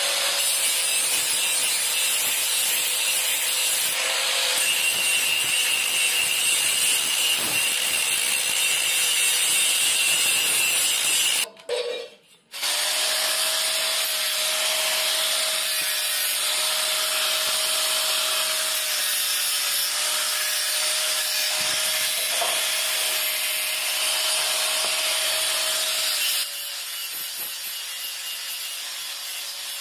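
Handheld angle grinder running with a steady whine, its disc grinding the steel blade of a sickle with a harsh, rasping hiss. The sound cuts out for about a second roughly twelve seconds in, then resumes, and is somewhat quieter near the end.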